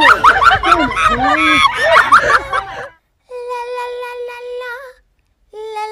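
Excited voices shouting and laughing for about three seconds. After a brief gap, a long held musical note sounds for about a second and a half, wavering at its end, and a second, slightly lower held note begins near the end.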